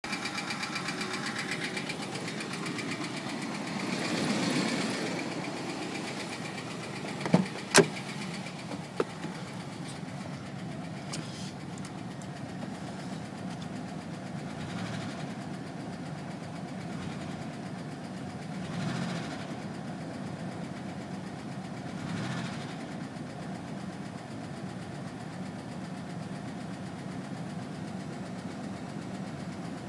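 1999 GMC Safari van's 4.3-litre V6 engine running at idle; the owner is showing strange noises from it. The sound swells briefly about four seconds in and twice more later, and three sharp clicks come between about seven and nine seconds in.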